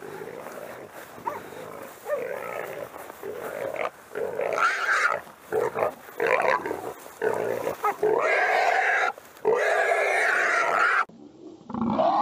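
Feral hog squealing while held by catch dogs. There are short, loud squeals from about four seconds in, and near the end they run together into long continuous screams.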